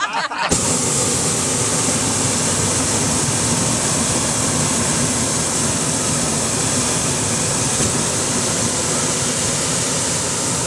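Hot air balloon propane burner firing in one long, steady blast that cuts in abruptly about half a second in, heating the air in the envelope.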